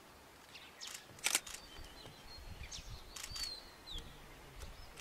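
Several sharp clicks, the loudest about a second in, over faint outdoor background, with thin high whistled bird calls in the middle.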